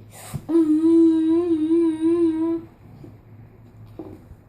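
A child's voice holding one long hummed note of about two seconds, with a slight waver in pitch, made as a vocal sound effect. A short breathy burst comes just before the note.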